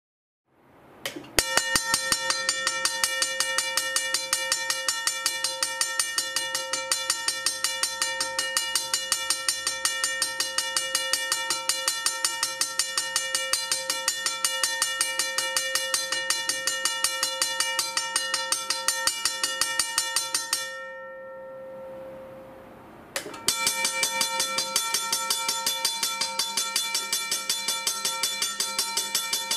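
Griswold electromechanical railway level crossing bell ringing with rapid, even strikes and a steady ringing tone. About 21 seconds in it stops and its tone fades, then after a click it starts ringing again.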